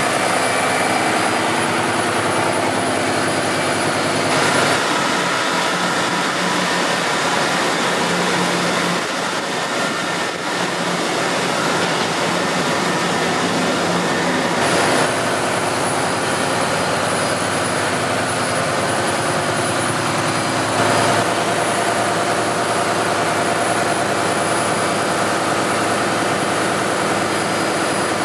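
Ship's engine-room machinery running: Yanmar diesel engines giving a loud, steady drone with a thin high whine above it. The tone shifts abruptly about 5, 15 and 21 seconds in.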